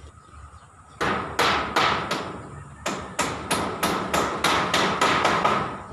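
Hammer blows on the wooden roof frame: four strikes, a short pause, then nine more at about three a second.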